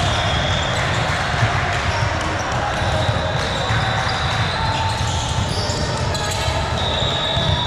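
Volleyballs bouncing and being struck in a gymnasium, over the steady chatter of many voices.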